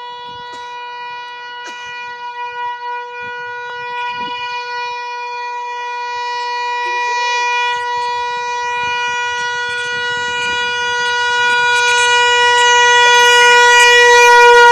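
WDP4D diesel locomotive's horn held in one long steady note, growing louder as the train approaches and cutting off as the locomotive reaches the crossing near the end.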